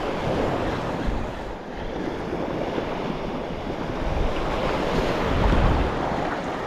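Shallow beach surf washing in, with wind buffeting the microphone in gusts, rumbling most about a second in and again past the middle.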